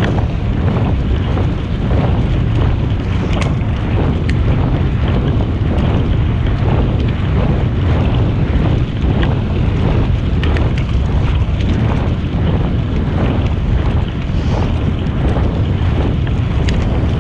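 Wind noise buffeting the microphone while riding a bicycle, a steady low rumble over the hiss of tyres rolling on the trail surface. Scattered light ticks run through it.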